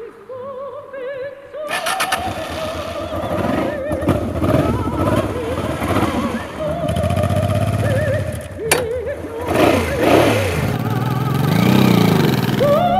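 Honda Transalp 650's V-twin engine starts up about two seconds in and runs with revs rising and falling, a sharp click partway through. A wavering theremin-like music melody plays over it throughout.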